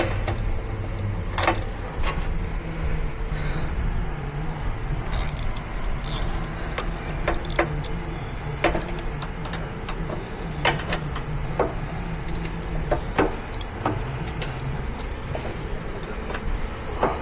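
Hand tools working on forklift hydraulic fittings: irregular sharp metallic clicks and knocks, roughly one a second, over a steady low mechanical hum.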